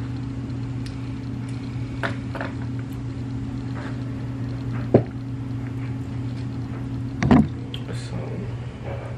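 A steady low hum, with a few handling knocks and clicks, the sharpest about five seconds in.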